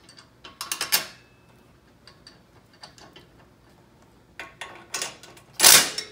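Metal parts clicking and rattling as a nerf bar foot peg and spacer are handled and fitted, with a short, louder clatter near the end.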